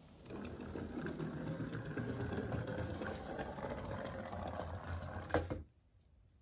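Toy excavator rolling down a wooden ramp on its plastic crawler tracks: a steady, fast clatter for about five seconds. It ends with a single knock as the toy comes off the board, then stops.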